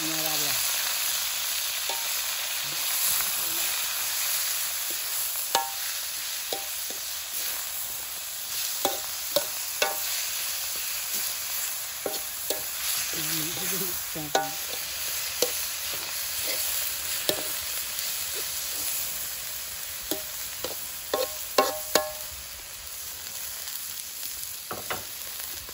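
Minced pork sizzling in hot oil in a blackened wok as it is cooked for larb, with a metal spatula clacking and scraping against the pan while it stirs and breaks up the meat. The sizzle is steady, the spatula strikes come in scattered bunches, and the sizzle eases a little near the end.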